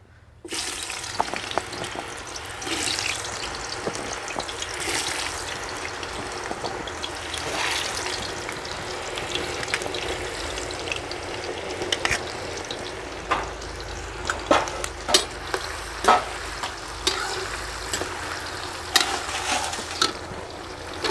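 Cubes of elephant foot yam (jimikand) sizzling as they go into hot oil in a kadhai and deep-fry, a steady frying hiss. From about twelve seconds in, sharp clinks of metal against the pan sound over the sizzle.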